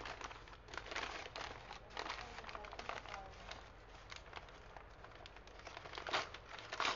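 Crumpled paper courier bag being handled and crinkled by hand, with crackling throughout. Two louder, sharper rips come near the end as the bag's edge is pulled open.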